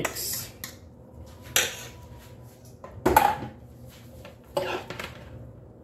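Kitchen dishes clattering: a stainless steel bowl knocking against a glass mixing bowl and being set down, four sharp clanks about a second and a half apart.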